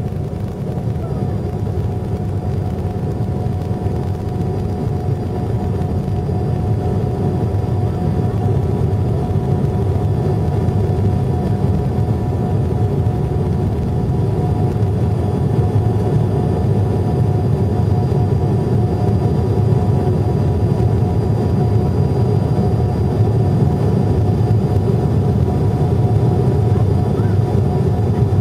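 Airliner turbofan engines at takeoff power, heard inside the passenger cabin: a steady low rumble with thin, steady whine tones on top. It grows a little louder over the first ten seconds or so as the aircraft lifts off and climbs.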